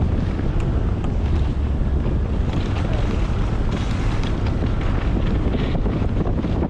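Wind buffeting the microphone: a steady low rumble with a hiss over it and a few faint clicks.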